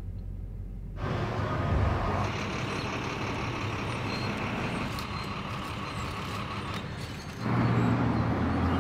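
Motor vehicle running: steady engine and road noise. After a quieter low hum, it grows louder about a second in and shifts to a heavier, lower rumble near the end.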